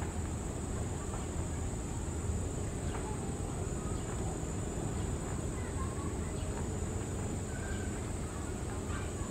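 Steady high-pitched insect drone with scattered short bird chirps over a low, steady rumble.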